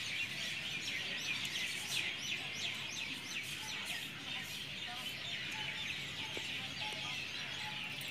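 Many small birds chirping together, a busy chorus of short, quick falling notes.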